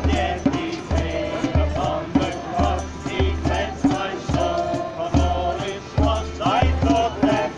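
Hymn music with singing voices over a steady drum and bass beat, about two beats a second.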